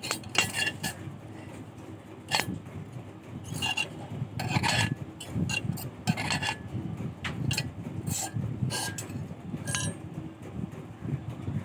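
Steel wire and rod clinking and scraping against each other and the bench vise as a torsion spring is worked by hand: irregular sharp metallic clicks, some ringing briefly, with scraping in between, over a steady low rumble.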